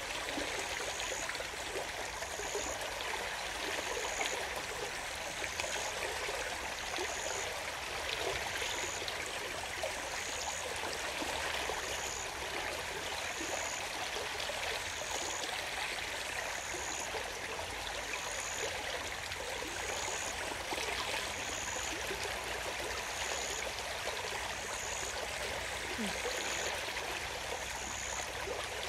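River water flowing steadily. A faint high chirp repeats a little more than once a second over it.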